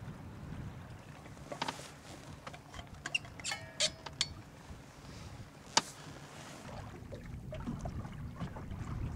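Steel thermos and cup clinking and clicking as a drink is poured, a handful of short sharp clicks with the loudest near the middle, over the low rumble of a slowly trolling boat on choppy water that grows louder near the end.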